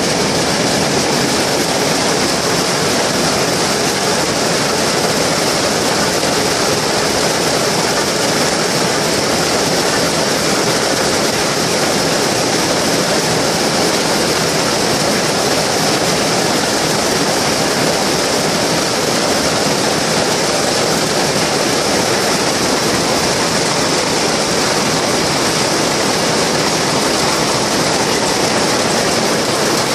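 Shuttleless weaving looms running at full speed, weaving terry towelling: a loud, dense, unbroken mechanical clatter.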